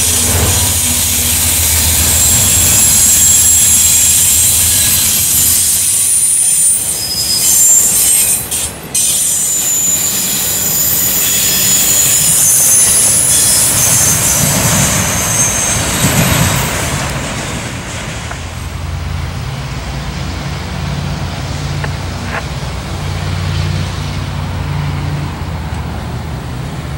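Freight cars rolling past close by, their steel wheels squealing in shrill, shifting high-pitched tones over the rumble of the train. About two-thirds of the way through the squeal dies away and a lower, steady diesel locomotive drone is left.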